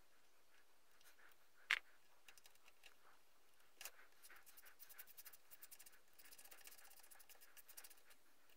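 Faint clicks and scratching of hand tools on a steel-braided brake line fitting at a motorcycle's front brake caliper: one sharp click about two seconds in, then a run of quick light ticks through the second half.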